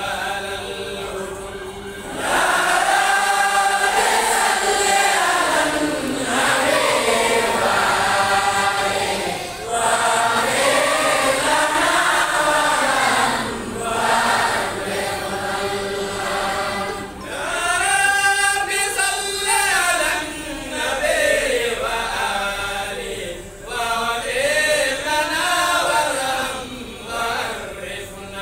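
Large crowd of men and boys chanting together in unison as they walk, repeating a rising-and-falling phrase about every three to four seconds.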